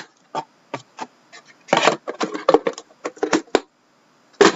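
Cardboard trading-card box being handled and opened: a quick series of clicks, taps and short rustles, with a louder knock near the end.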